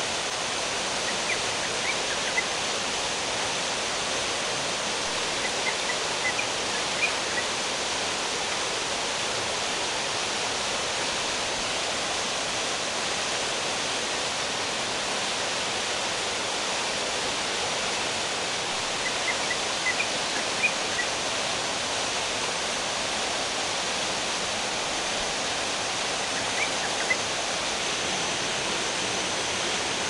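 River water rushing and cascading over rocks, a steady even hiss. Small clusters of short high chirps cut through it four times.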